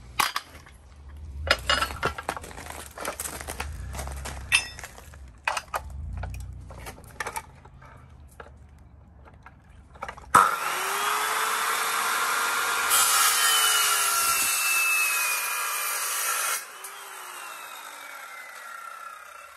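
Knocks and scraping as a metal bar is handled and set in place. About halfway, a small Guild chop saw's motor starts with a quick rising whine, runs steadily, and gets louder and harsher for a few seconds as the blade cuts into the carpet stretcher's metal bar. It is then switched off, the whine falling as the blade winds down.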